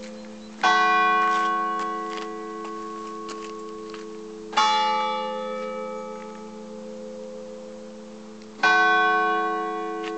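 Large bell tolling: three strikes about four seconds apart, each ringing on and fading slowly into the next.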